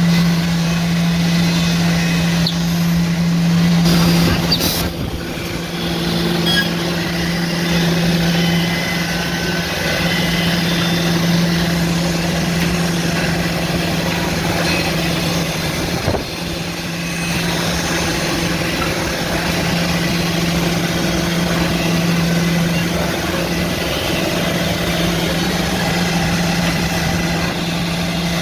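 CNC horizontal boring machine for cam-lock and dowel holes running with a steady hum. Brief knocks come about four seconds in and again about sixteen seconds in.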